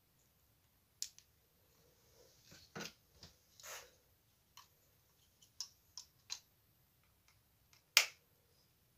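Scattered small clicks and taps from handling, with a brief rustle about halfway and one louder, sharp click about eight seconds in.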